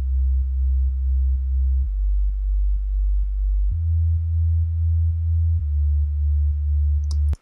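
Synthesized sub bass, a pure sine wave, playing a slow four-note line. Each note is held about two seconds: the second note is lower, the third is the highest and the fourth is a little lower again. The level dips briefly about twice a second.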